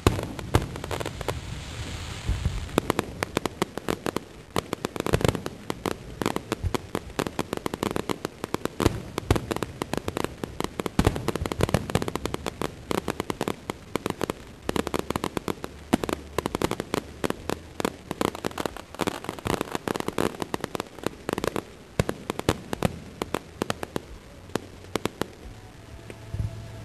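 Aerial fireworks going off in a dense, rapid barrage of sharp bangs, thinning out near the end.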